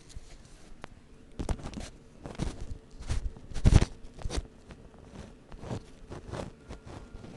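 Handling noise of a phone being moved in the hand: irregular rustling and scraping of fabric and skin against the microphone, with a few knocks. The loudest rub comes a little under four seconds in.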